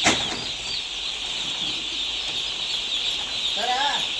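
Chickens clucking and calling over a dense, steady high-pitched chirping, with one louder arching call near the end. A sharp knock sounds right at the start.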